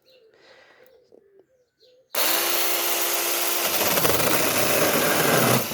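Battery-powered mini chainsaw starting suddenly about two seconds in with a steady motor whine. About a second and a half later the sound turns coarser and fuller as the chain bites into and cuts through a branch. It stops just before the end.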